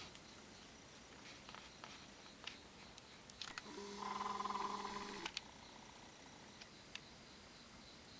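Young orange-and-white cat giving one drawn-out, low night call, about a second and a half long, a little under four seconds in. A few faint clicks before and after it.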